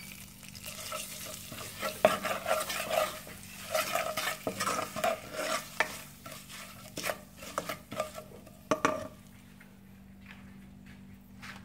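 Wooden spatula stirring chilli powder and salt into oil with curry leaves in a non-stick pan, with irregular scrapes and taps against the pan. The stirring thins out about nine seconds in.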